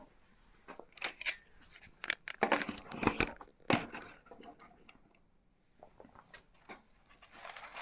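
Sheet of paper being handled, rustling and crinkling, with scattered irregular clicks and taps.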